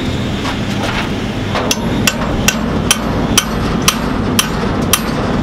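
Hammer striking a tacked steel pipe flange, about eight sharp ringing blows at roughly two a second, starting a little over a second and a half in. The flange is being knocked down to bring it level and square on the pipe.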